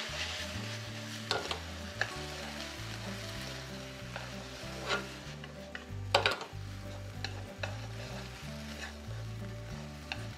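Udon noodles with vegetables and seafood being stir-fried in a frying pan: a steady sizzle, with the utensil knocking against the pan now and then, over soft background music.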